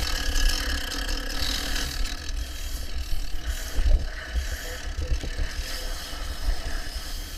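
Firefighter's hand tool prying and knocking open the cut roof decking during vertical ventilation, with a few knocks around four and five seconds in, over a steady low rumble and faint mechanical hum.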